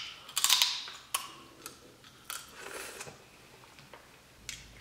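Close-up eating sounds from a seafood boil eaten by hand: mouth smacks and sucking with crackling clicks of shells being picked apart. A louder noisy burst comes about half a second in, then scattered sharp clicks.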